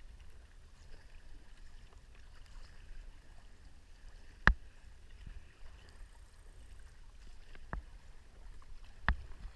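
Sea kayak paddled slowly on calm water: a low steady rumble with quiet water sounds, broken by a few sharp knocks, the loudest about four and a half seconds in and two more near the end.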